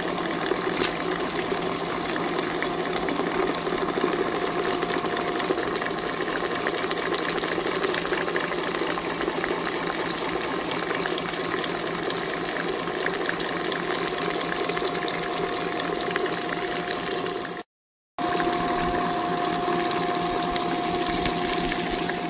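Model-B7 stand mixer running at a steady speed, its wire whisk beating sponge cake batter in a stainless steel bowl, with an even motor whine. The sound drops out for a moment about three-quarters of the way through.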